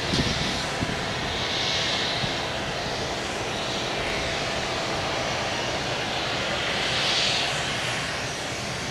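Jet airliner engines running, a steady noise with a higher hiss that swells and fades several times.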